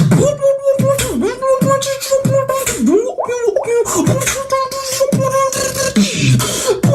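Beatboxing: a steady rhythm of vocal kick-drum drops and hissing hi-hat sounds over a held hummed note.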